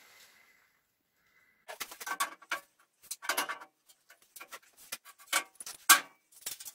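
Steel tractor cab door clanking and rattling on its hinges as it is hung or lifted off: irregular metallic knocks and clinks with short ringing, starting about a second and a half in.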